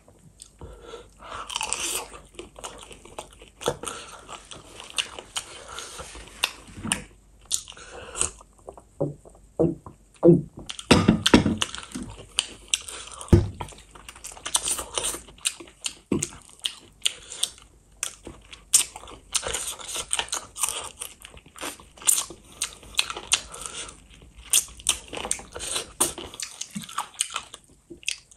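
Chewing and biting on gravy-coated chicken feet and rice eaten by hand: a continuous run of short, sharp mouth noises, with a brief lull about eight seconds in.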